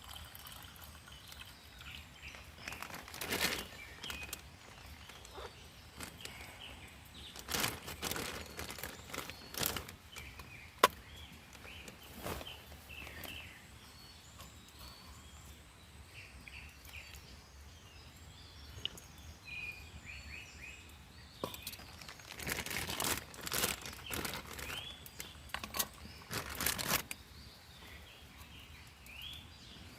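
Small birds chirping and calling on and off, with several bursts of rustling noise and one sharp click about eleven seconds in.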